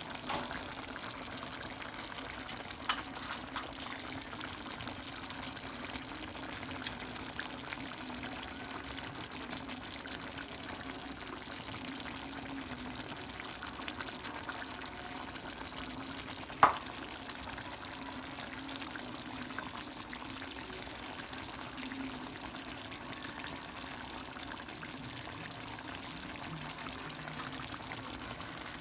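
Chicken afritada in tomato sauce simmering in a frying pan: a steady bubbling, sizzling hiss, with a few small clicks and one sharp click a little past halfway.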